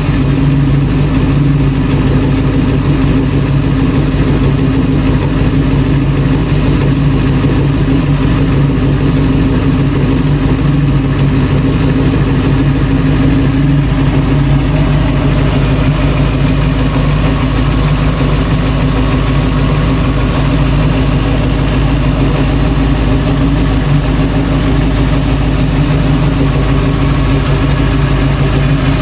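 Restored 1966 Ford Bronco's engine idling steadily on one of its first runs after the restoration, its first time running behind a transmission.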